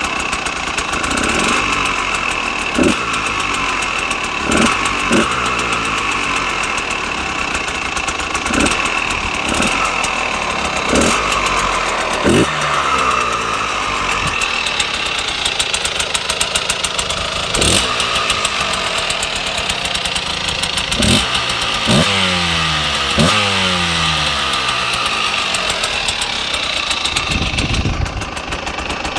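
Husqvarna SM 125 two-stroke single-cylinder supermoto engine idling, with about a dozen short throttle blips that rise and fall. The bike is stock and still restricted, and the engine is cold and new, in its running-in period.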